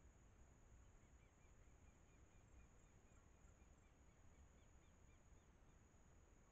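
Near silence: faint night ambience with a steady high-pitched whine and, from about a second in until about five seconds, a faint run of short repeated chirps.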